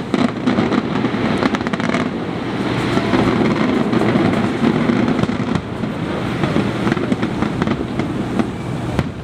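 Fireworks finale: aerial shells bursting in a dense, rapid barrage of overlapping bangs over a continuous rumble.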